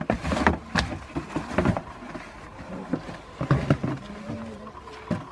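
A goat kid wrestling an empty cardboard box: irregular knocks, scuffs and rustles of the cardboard as it is butted, lifted and tipped over.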